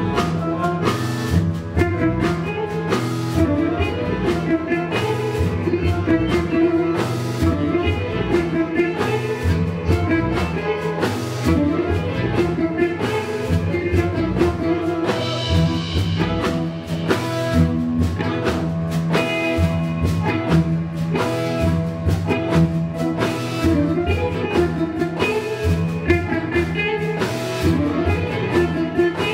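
Live music from a large mixed ensemble of cello, guitar, saxophone and other instruments, playing a dense, layered piece of improvised and written experimental orchestral music.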